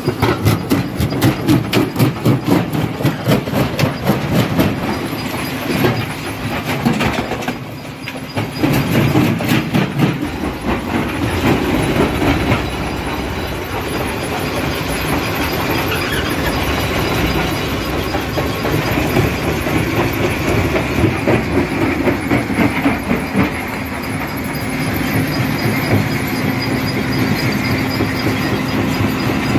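Rock crusher breaking stone: rapid, dense clatter and knocking of rock being crushed, dipping briefly about eight seconds in. After that it settles into a steadier grinding rumble under a low steady hum.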